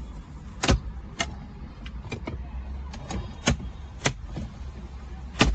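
Plastic interior trim and screws being handled and worked loose: about nine sharp clicks and knocks at irregular intervals over a steady low hum, the loudest near the end.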